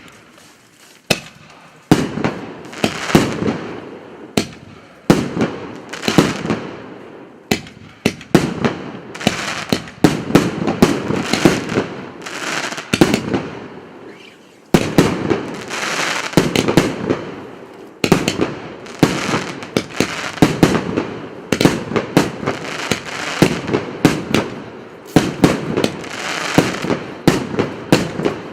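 A 78-shot consumer firework cake of 1.2-inch and 2-inch shells firing in a fast series: sharp shots about every second, each followed by bursts and crackling.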